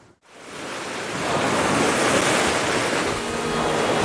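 Sea waves washing on the shore in a steady rushing surf, fading in over the first second or so.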